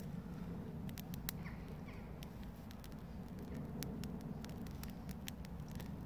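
Small tinder fire of burning shredded Gorilla Tape and tampon crackling under a twig bundle held over it: scattered, irregular sharp pops and snaps over a low steady rumble.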